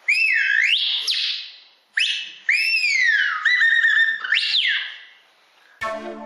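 Bird whistle blown to imitate birdsong: two loud phrases of smoothly swooping pitch, gliding up and down, the second with a short wavering trill in the middle. Electronic music starts near the end.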